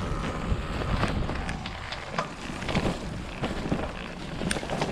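Wind rumbling on the microphone of a bicycle being ridden, with scattered clicks and rattles.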